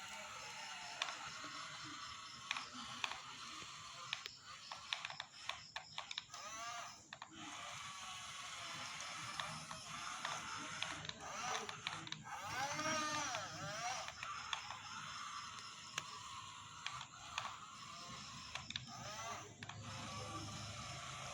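Small electric motors and plastic gearboxes of radio-controlled construction models whining, their pitch rising and falling as they speed up and slow down, with repeated short clicks and ratcheting from the gears and tracks.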